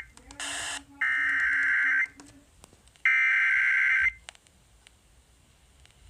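Emergency Alert System header data: two one-second bursts of buzzing digital data tones, about a second apart. A short hiss of static and a low pulsing beep come just before them.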